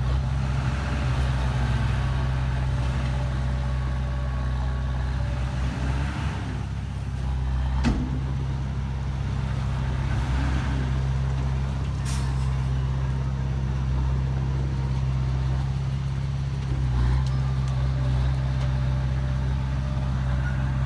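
Heavy diesel engine of earthmoving machinery running steadily, with a single sharp knock about eight seconds in and a brief high hiss a few seconds later.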